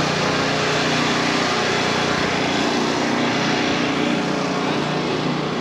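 A small engine or motor running steadily, a constant drone over outdoor background noise.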